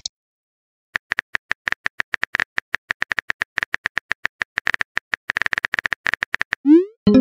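Texting-app keyboard typing clicks: an irregular, quick run of short taps starting about a second in. Near the end they give way to a rising swoosh and a chime as the message is sent.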